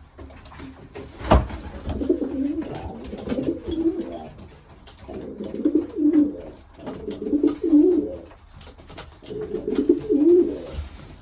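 Racing pigeon cooing in the loft: four rolling coo phrases in a row, the courtship cooing of a pair billing. A sharp knock sounds about a second in.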